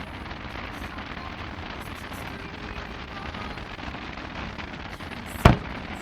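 A steady background hiss, then one sharp, loud firework bang near the end.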